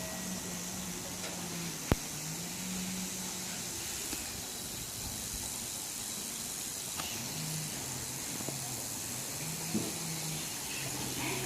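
Railway overhead catenary wire giving off a low hum that comes and goes, shifting in pitch, over a steady hiss, with one sharp crack about two seconds in and a few faint ticks later. The uploader asks whether this is an abnormal noise from the wire.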